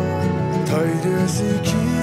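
Background music: a melodic song track.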